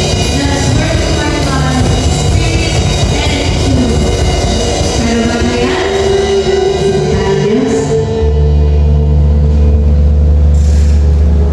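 Live worship band playing a song: a female singer over drum kit, electric guitar and keyboard. The singing stops about eight seconds in and the band holds one long chord with a deep bass note.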